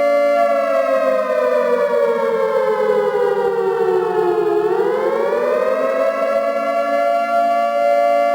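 Civil defense siren sounding a loud, steady chord that slides down in pitch from about half a second in to about four and a half seconds in, then climbs back up to the held pitch. The siren is sounding what the uploader calls a nuclear raid warning.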